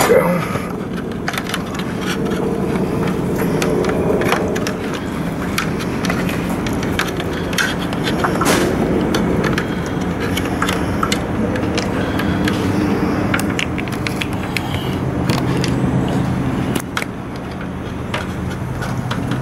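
A steady low mechanical hum under frequent short clicks and knocks, from wiring and parts being handled as wires are pulled through and fitted.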